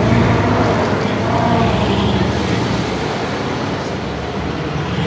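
Bugatti Veyron 16.4 Pur Sang's quad-turbocharged W16 engine running at low speed in street traffic, a steady low engine note with surrounding traffic noise.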